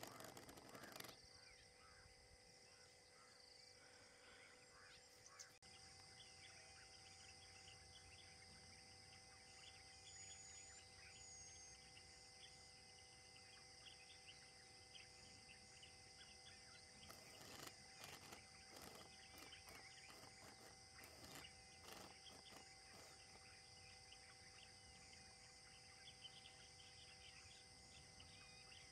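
Faint forest ambience: a steady high insect-like hiss with many small scattered chirps, and a cluster of soft clicks about two-thirds of the way through.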